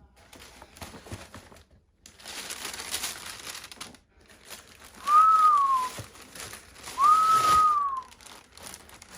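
Paper crinkling as a shoebox is unpacked, then two whistled notes, each about a second long, that rise a little and then slide down.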